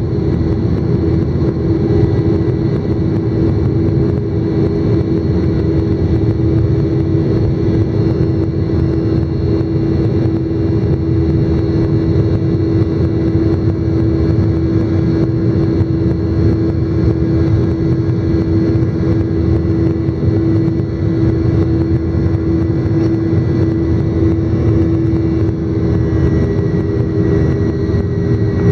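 Jet airliner's engines at takeoff thrust, heard from inside the cabin beside the engine: a loud, steady roar with a droning hum through the end of the takeoff roll, liftoff and initial climb.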